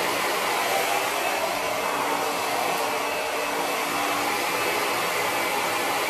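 Handheld hair dryer blowing steadily on wet hair: an even rush of air with a faint motor hum.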